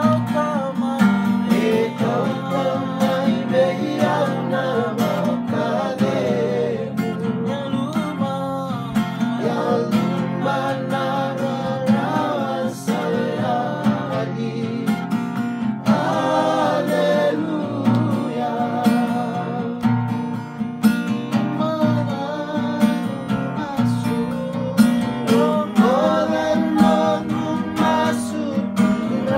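Men singing a song together to a strummed acoustic guitar, with a steady strumming rhythm under the voices.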